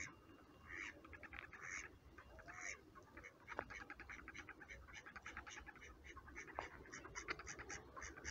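Ducks quacking: a few separate calls, then a quick run of short quacks at about five a second from about three and a half seconds in.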